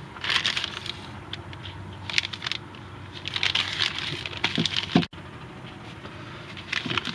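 Packaging being handled and opened by hand: several bursts of crinkling and rattling, about a second long each, with short pauses between.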